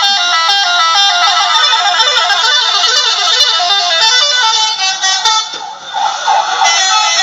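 Multi-tone 'telolet' bus air horns playing a tune of short notes that step up and down in a repeating pattern, with a brief dip about five and a half seconds in.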